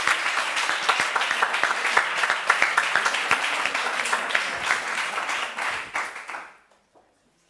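Audience applauding at the close of a speech; the clapping fades out about six and a half seconds in.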